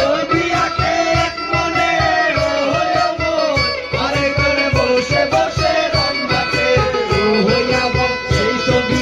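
Music: a fast, steady drum beat of about four beats a second under a wavering melody, with held drone tones.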